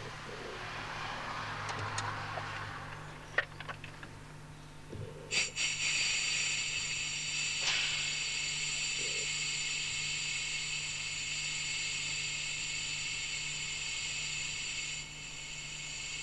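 Firefighter's compressed-air breathing apparatus set under its routine check: a soft hiss of air and a few handling clicks, then about five seconds in the set's low-pressure warning whistle starts, a steady shrill whistle that sounds as the air is vented.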